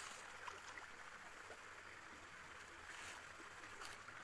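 Faint, steady flow of a shallow rocky stream, with a few light water splashes.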